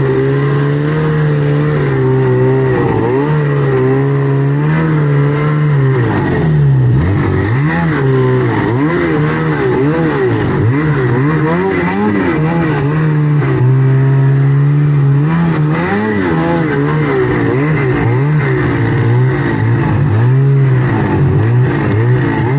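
Snowmobile engine running hard under throttle while riding. Its pitch holds mostly steady, dips and wavers around a third of the way in, then again past the middle, and climbs back each time.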